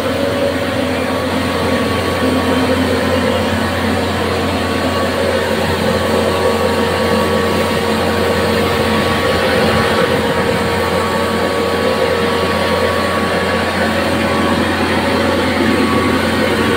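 Truck-mounted high-pressure flushing pump running steadily, with the water jet from a hand-held spray lance hissing against the concrete pavement. A constant machine hum sits under the spray noise.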